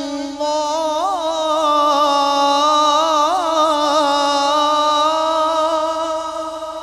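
A man reciting the Quran in the melodic tajweed style, amplified through a microphone. He holds one long sung note, with rapid wavering ornaments in the middle, then sustains it steadily and lets it fade near the end.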